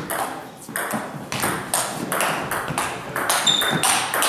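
Table tennis rally: the ball clicks sharply off the bats and the table top, two to three clicks a second, with a brief high squeak about three-quarters of the way through.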